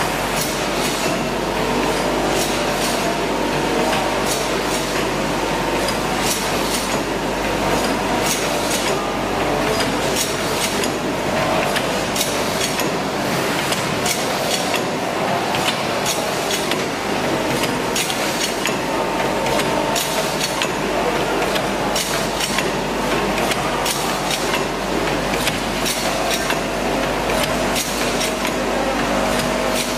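Canned-powder filling and seaming line running: cans clinking and knocking along stainless conveyors and through the seamer's rotary star-wheel, with frequent irregular clicks over a steady machine hum.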